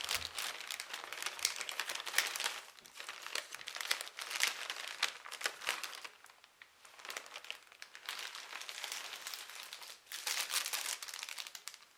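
Plastic packaging crinkling in irregular bursts as it is handled and opened, with a brief lull about six seconds in.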